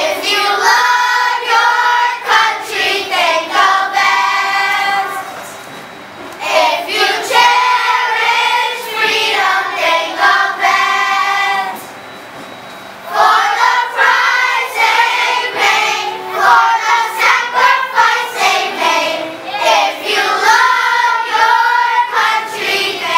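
Children's choir singing a song together, with two short pauses between phrases, about five seconds and about twelve seconds in.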